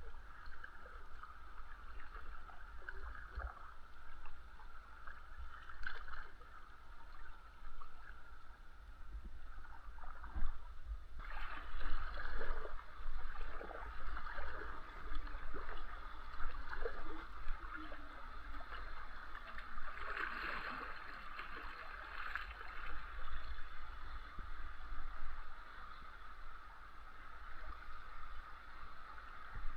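Water running and gurgling around a kayak, with irregular splashy swells and a low steady rumble underneath.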